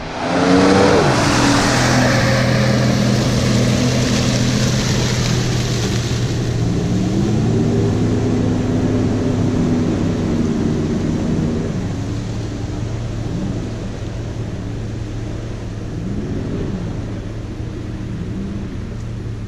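Jeep Grand Cherokee ZJ's 5.2-litre V8 running at high revs through deep mud on 35-inch mud tyres, its revs rising and falling again and again, with a loud rushing noise over the first six seconds. The engine sound slowly fades as the Jeep draws away.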